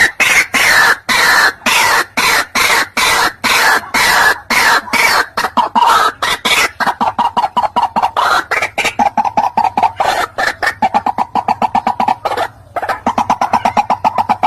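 White-breasted waterhen calling: a long run of short repeated notes, a few a second at first, then faster and more even from about halfway, with a brief break near the end.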